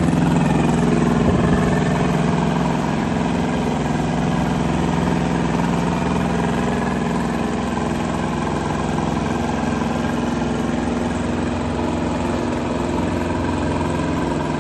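Lombardini diesel engine of a Pezzalato Master 14 tracked wood chipper running steadily, slightly louder in the first couple of seconds.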